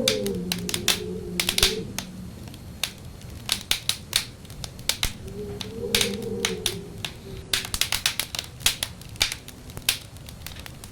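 Wood fire crackling with frequent, irregular sharp pops. Over it, wind howls in a low, wavering tone that dies away about two seconds in and comes back around the middle.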